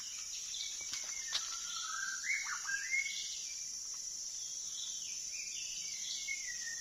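White-rumped shama singing: a run of varied whistled phrases that slide up and down in pitch, with short gaps between them, over a steady high insect drone.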